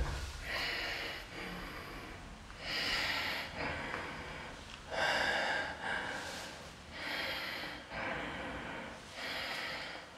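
A person breathing heavily and audibly close to the microphone: a series of about seven breaths, roughly one every second and a half.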